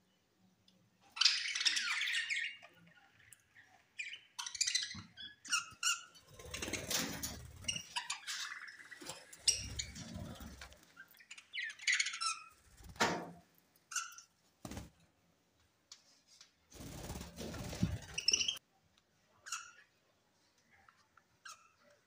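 A flock of budgerigars chirping and chattering in short, high calls and squawks, with a few louder rustling bursts in between.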